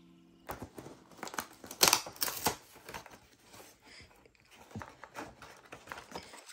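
Cardboard doll box and its brown paper insert being handled and pulled open: a run of crinkles, crackles and small rips, loudest about two seconds in. Background music fades out at the start.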